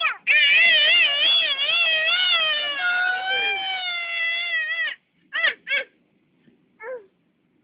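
Toy chainsaw's electronic engine sound effect: a loud, buzzy whine that wavers up and down in pitch for about four and a half seconds, then cuts off sharply. A few short high cries follow.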